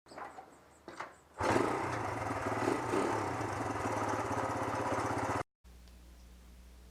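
A couple of short clicks, then a small engine running for about four seconds with a fast, even pulse, cutting off abruptly. A low steady hum follows.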